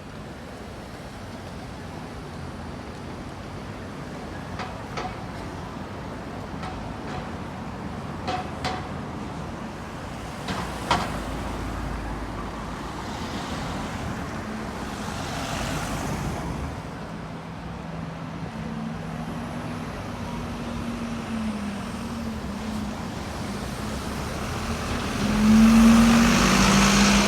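Street traffic: a steady hiss of vehicles with a few sharp clicks in the first half. An engine hum joins about halfway through and grows to its loudest near the end as a vehicle passes close.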